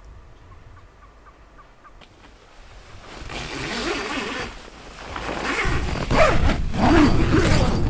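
Rustling and zipping of a tent's fabric door starting about three seconds in. Wind buffets the microphone from a little past halfway.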